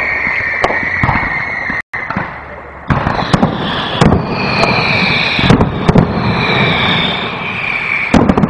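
Aerial firework shells bursting in rapid succession: sharp bangs over continuous crackling, with high tones that slowly fall in pitch. The sound cuts out briefly about two seconds in, stays quieter for a second, then the bangs come thick again.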